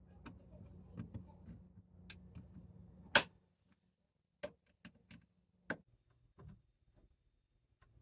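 Sharp plastic clicks and snaps from a Lenovo ThinkPad T14 Gen 4's bottom cover as a plastic pry tool works along its seam and releases the cover's clips. The loudest snap comes about three seconds in, followed by a few lighter, scattered clicks.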